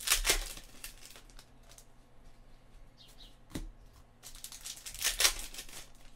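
Trading cards being handled by hand: two bursts of sliding, rustling card stock, one right at the start and one about five seconds in, with a single light tap about three and a half seconds in.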